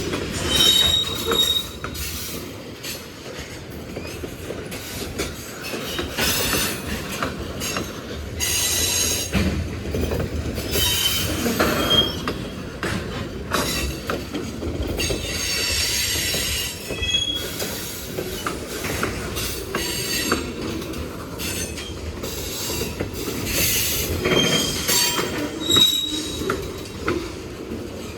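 Norfolk Southern manifest freight train's cars rolling past, wheels clicking over rail joints under a steady rumble. High-pitched wheel squeals come and go throughout.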